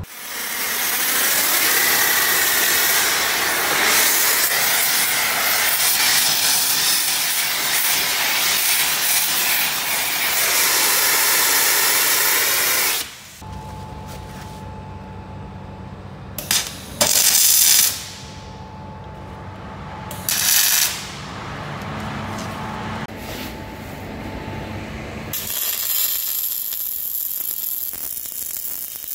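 A gas preheating torch hissing steadily on the steel rod for about the first thirteen seconds. Then a quieter hum with a few short, louder bursts. Near the end comes the crackle of a metal-core MIG welding arc on the joint between the rod and its new eye.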